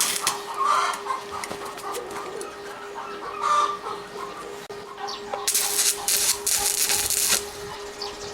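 Arc welding a broken steel machete blade: the arc crackles and sizzles in bursts separated by short pauses, the longest about five and a half to seven and a half seconds in. Chickens cluck in the background.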